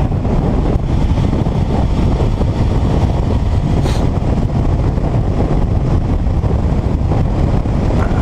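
Wind rushing over a helmet-mounted camera's microphone at road speed, with a 2012 Kawasaki ER-6f's 650 cc parallel-twin engine running steadily underneath.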